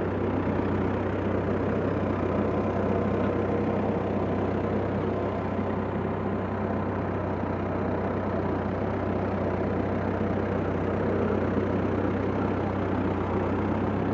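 Tractor engine running steadily while towing a hay rake through a mown field, an even low hum with mechanical rattle-like noise above it.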